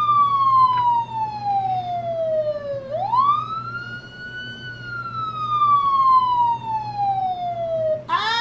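Police siren wailing: the pitch falls slowly, sweeps quickly back up about three seconds in, then falls slowly again.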